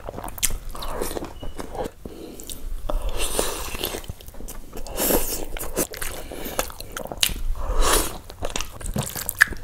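Close-miked eating: a person biting and chewing tandoori chicken and naan dipped in butter chicken gravy, in irregular bites and wet chews.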